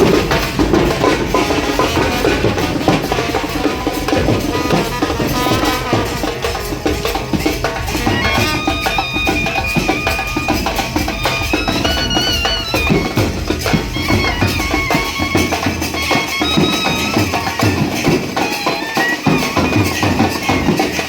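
Indian wedding band (band-baja) playing a traditional tune over dense, steady drumming, with a high, reedy melody that stands out from about eight seconds in.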